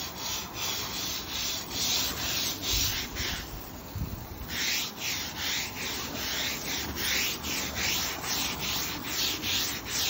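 Stiff-bristled deck brush scrubbed hard back and forth along the grain of wet Dekorator Voyage composite decking, about two to three strokes a second, with a short pause about three and a half seconds in. This is heavy-duty scrubbing to clean the deck.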